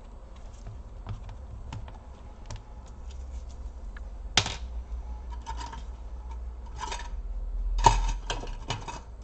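Plastic laptop case parts clicking and scraping as the halves are pried apart by hand: scattered small ticks, one sharp snap about halfway through, then a few short scraping rasps near the end.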